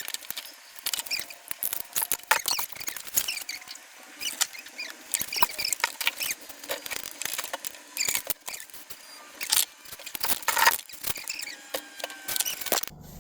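Hand tools and bike parts being handled: irregular clicks, knocks and clinks, with short high squeaks in between.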